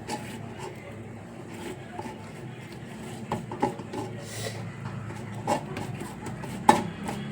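Kitchen utensils scraping and knocking against a bowl or pan: irregular short knocks over a steady low hum, with the sharpest knock near the end.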